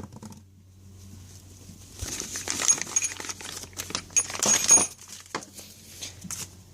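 Metal hand tools clinking and rattling together, with some rustling, as they are handled, for about three seconds starting some two seconds in.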